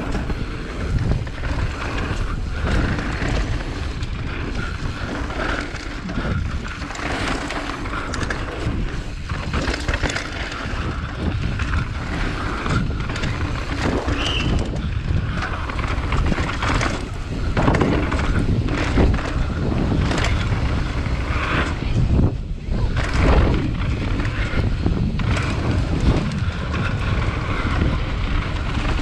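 Downhill mountain bike ridden fast over a dry, rocky dirt trail: steady wind rush on the microphone and knobby tyres rolling over dirt, with frequent knocks and rattles as the bike hits rocks and bumps.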